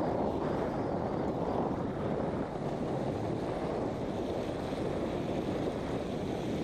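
Steady wind buffeting the microphone, with waves lapping against the rocky shoreline.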